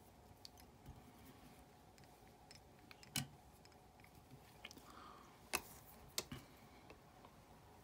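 Near silence: faint steady room hum with a few small sharp clicks from handling fly-tying tools and materials, three slightly louder ones about three, five and a half and six seconds in.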